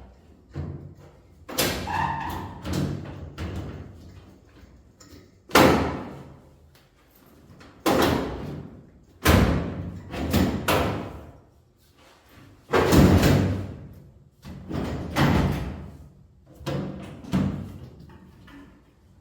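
A series of loud bangs and thumps, about eight, each dying away briefly, coming every one to three seconds.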